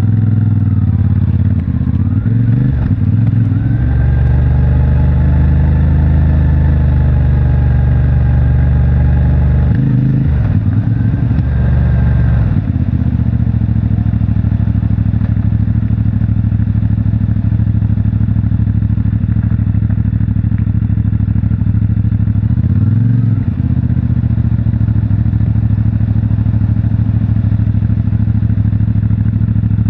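CFMOTO 450MT's parallel-twin engine through the stock exhaust, pulling at moderate revs and then dropping to a low, steady idle about twelve seconds in, with a brief blip of throttle near the end.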